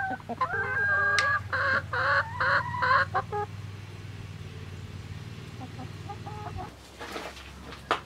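Backyard hens calling: a string of loud, repeated squawks over the first three seconds or so, then a few faint clucks.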